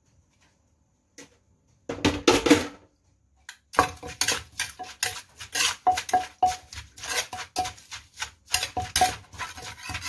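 Wooden pestle pounding shredded green papaya in a clay mortar for som tam, with a metal spoon clinking against the mortar as it turns the mix. A few knocks come about two seconds in, then steady pounding at about three strokes a second from about four seconds in.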